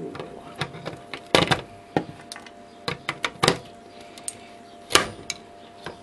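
Irregular clicks and snaps of pliers prying plastic connector housings and brass pins off a washing machine motor drive circuit board, with a few louder cracks among them.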